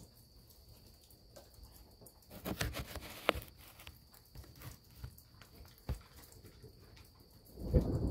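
Thunder starting to rumble loud and low near the end, over a faint steady high trill of crickets. Before it, scattered sharp clicks and taps come and go about two to six seconds in.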